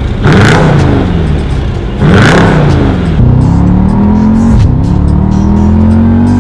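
Jeep Grand Cherokee SRT's V8 revving hard through a muffler-deleted exhaust. Two quick rev blips are followed by the revs held high, drifting up and down, before cutting off suddenly near the end.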